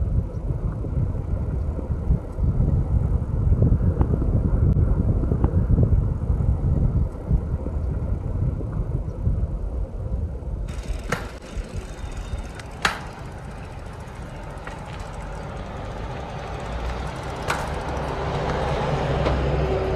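A stunt bicycle being ridden outdoors: low rumble of wind on the microphone and the tyres rolling, turning to a brighter hiss after about ten seconds, with a few sharp clicks.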